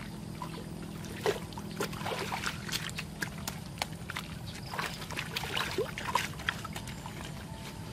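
Hands scooping and squelching through wet mud and muddy water in a shallow dug pit, with irregular short splashes and slaps.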